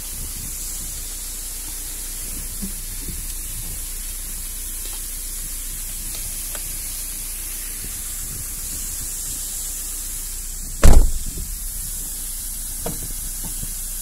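Steady rushing hiss of a roadside waterfall heard from inside a car, with a few light knocks and one loud thump about eleven seconds in.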